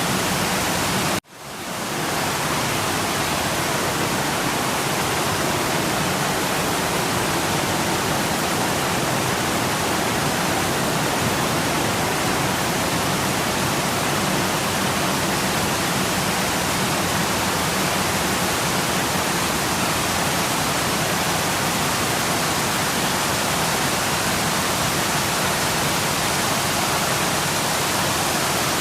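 Waterfall rushing, a steady, dense roar of falling water. About a second in it cuts out suddenly and fades back in over about a second, then runs on unchanged.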